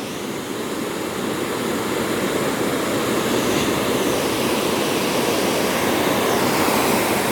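Ocean surf: the steady rush of large waves breaking, growing gradually louder.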